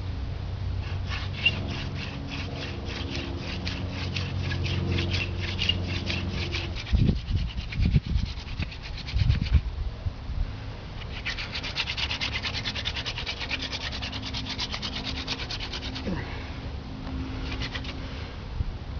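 Hand-drill friction fire: a plant-stalk spindle spun back and forth between the palms, its tip grinding in the fireboard's hole. Rapid rubbing strokes in two long bouts with a short pause between them, and a few low thumps around the middle.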